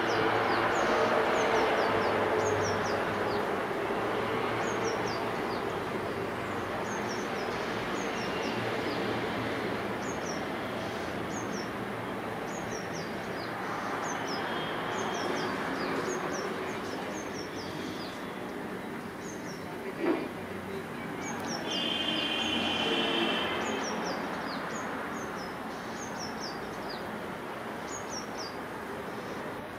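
Distant, steady rumble of an approaching EMD WDP 4D diesel locomotive, with a bird repeatedly giving short, high, falling chirps. There is one sharp click about two-thirds of the way through.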